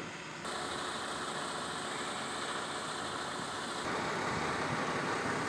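Truck engines idling: steady engine noise that steps up a little in loudness about half a second in and again near four seconds.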